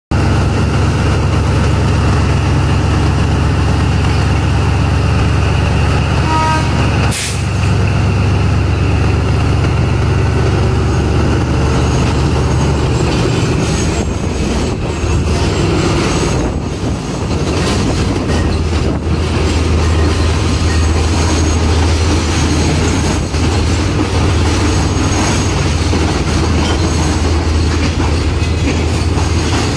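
Diesel locomotive engine running with a deep, steady drone as a ballast train pulls out, with the rumble of wheels and wagons on the rails; the engine note shifts about halfway through. A single sharp bang comes about seven seconds in.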